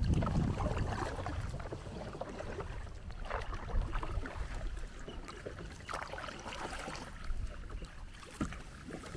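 Kayak paddles dipping and splashing in the water, a few separate strokes at irregular intervals, over a low rumble that fades in the first couple of seconds.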